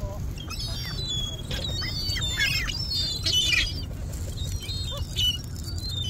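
A flock of ring-billed gulls calling, many short high cries overlapping one another, thickest and loudest around the middle. A steady low rumble runs underneath.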